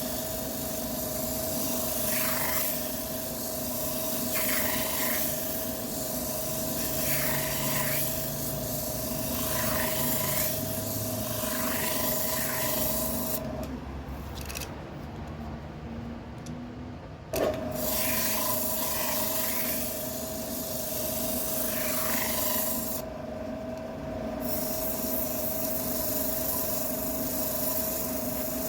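Wood lathe running with a steady hum while something rubs against the spinning wood in repeated passes about every two seconds. About halfway through, the lathe's steady note stops for a few seconds, then comes back with a sharp knock.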